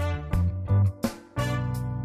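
Background music with a bass line and sharp drum hits.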